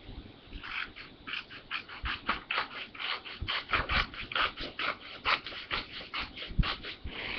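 Paper or notebook cover being cut by hand, with quick repeated scraping strokes about three to four a second.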